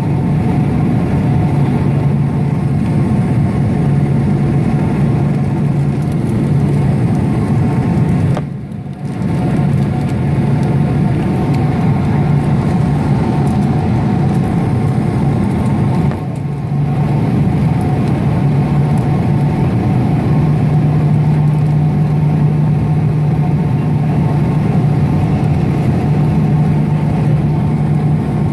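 Jet airliner cabin noise beside the engine during descent for landing: a steady engine drone with a strong low hum. It dips briefly about eight and a half seconds in and again about sixteen seconds in.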